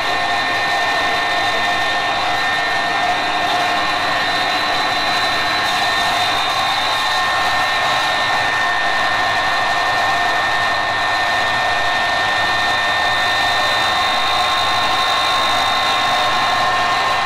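Generator running steadily under load: an even rushing noise with a steady high-pitched whine layered on top, unchanging throughout.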